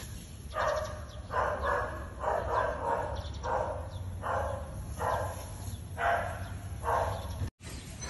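An animal barking repeatedly, about nine short barks roughly one a second, cut off abruptly near the end.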